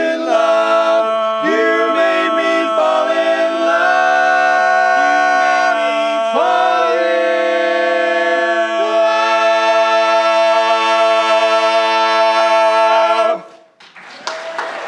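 Barbershop quartet singing a cappella in close harmony, closing the song on a final chord held for about seven seconds that all voices cut off together. Applause starts just after, near the end.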